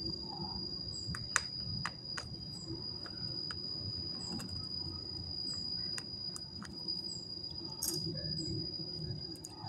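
Scattered sharp clicks and taps of small screws and a screwdriver being handled against a laptop's casing during reassembly, over a steady high-pitched tone and a low hum.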